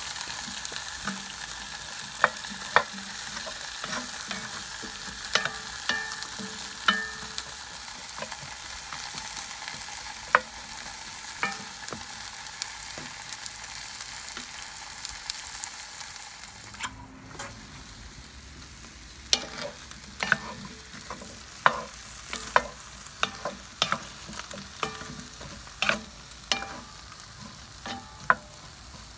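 Vegetables and garlic sizzling in a hot cast iron Dutch oven while being stirred, with many sharp knocks and scrapes of a wooden spatula against the pot. The sizzle grows quieter a little past halfway, and the knocks come more often after that.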